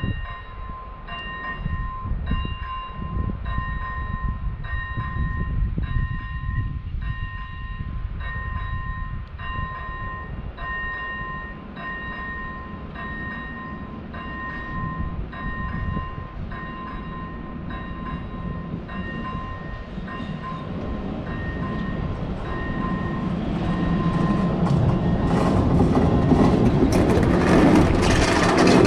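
Czech class 181 electric locomotive 181 150-4 approaching and passing close by: a low rumble that builds steadily and is loudest near the end as the locomotive goes past. Over the first two thirds a steady repeating beep sounds, about four beeps every three seconds.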